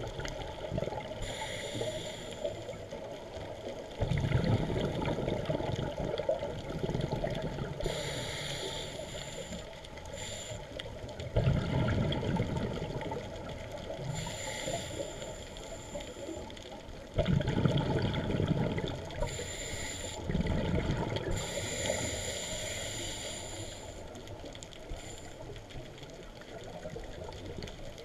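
Underwater sound of a scuba diver breathing through a regulator: hissing inhalations alternating with loud bubbling exhalations every few seconds, over a steady underwater noise.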